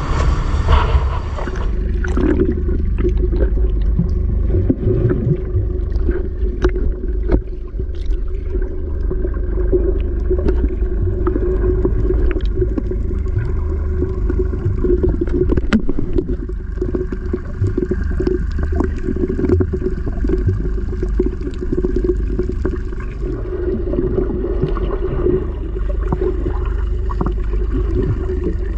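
Briefly a boat engine running on deck, then muffled underwater sound picked up through an action camera's waterproof housing: a heavy low rumble with gurgling water and many small clicks and ticks.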